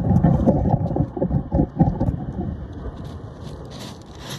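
Wind buffeting the phone's microphone, an irregular low rumble that is strongest in the first couple of seconds and dies down after about two and a half seconds.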